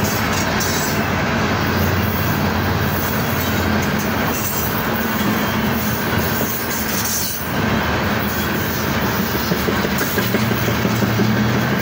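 Loaded coal hopper cars of a freight train rolling past: a steady rumble of steel wheels on rail, with a few sharper knocks near the end.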